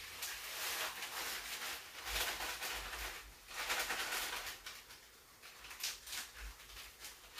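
Rustling and scraping as brown sugar is spooned into a disposable foil pan of baked beans with a wooden spoon, in three or four short bursts about a second long.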